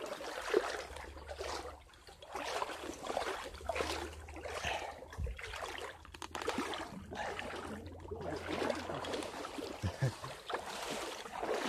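Footsteps wading through shallow creek water, a splash and slosh with each step, roughly one step a second.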